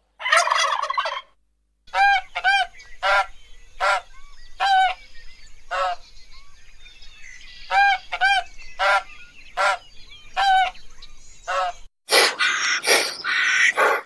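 Large birds calling: a brief harsh burst, then about a dozen short pitched calls repeated at a steady pace, then more harsh, noisy calls near the end. The sound cuts out abruptly twice, as at edits between clips.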